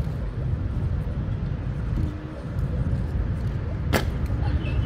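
Steady low rumble of outdoor street ambience, with a single sharp click about four seconds in.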